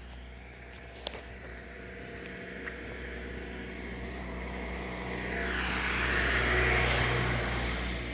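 A car's engine running close by as a car passes, the road noise swelling to its loudest about two-thirds of the way through and then easing off. A sharp click about a second in.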